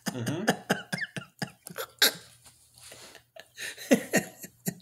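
People laughing in short, breathy, stifled bursts, with a pitched giggle in the first second.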